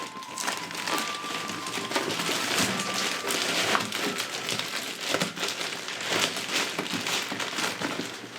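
Packaging crinkling and rustling as it is handled, with many small irregular clicks and crackles.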